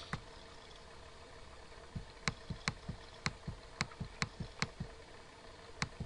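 A run of about a dozen light clicks over nearly three seconds, then a single click near the end, from computer controls as the page is scrolled, over faint steady room hiss.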